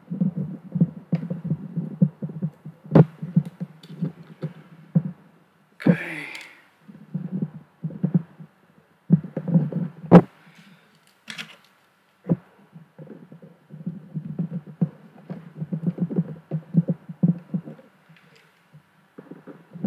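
Handling noise from prying at a calculator's keyboard bezel with small screwdrivers: irregular low rubbing and knocking as the calculator is pressed and worked on a cloth, with a few sharp clicks and a short hiss about six seconds in.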